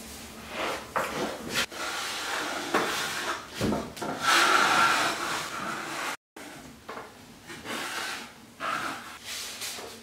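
Metal drywall taping knife scraping and spreading joint compound into an inside corner between wall and ceiling: a series of rasping strokes, with a brief cut in the sound about six seconds in.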